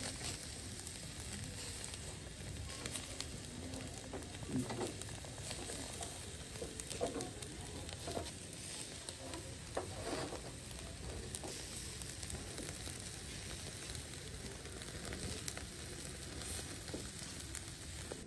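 Chicken on metal skewers sizzling over a charcoal barbecue grill, with scattered sharp crackles from the burning coals.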